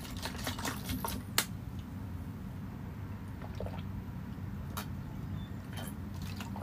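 Thin plastic drink bottle crinkling and clicking as it is handled and drunk from, the clicks bunched in the first second and a half with a couple more near the end, over a low steady hum.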